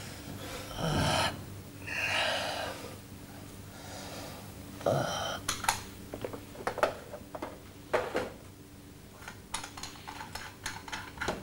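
Two heavy breaths or gasps from a person in the first few seconds. About five seconds in comes a dull thump, followed by a string of irregular light knocks and clicks.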